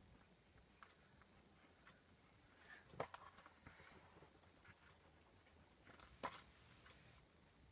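Pencil writing on paper in a kanji workbook: faint scratching strokes, with two sharper taps about three and six seconds in.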